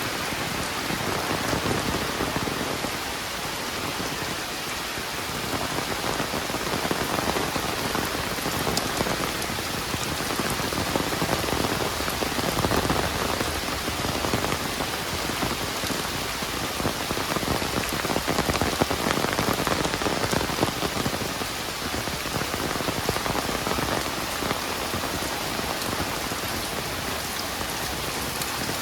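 Heavy rain pouring down steadily, a dense hiss of drops striking surfaces with countless small patters.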